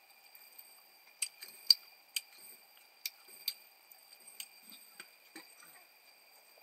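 A series of sharp, irregular clicks and knocks, about eight over four seconds, the loudest near two seconds in, like hard objects being tapped or set down.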